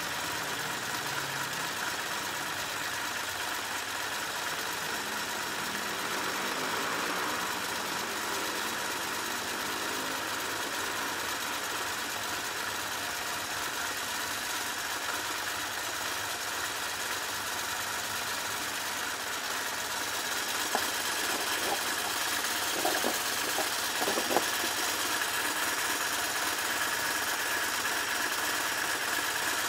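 BMW R1150GS air-cooled flat-twin (boxer) engine running steadily at idle. A few short, sharp clicks come about three quarters of the way through.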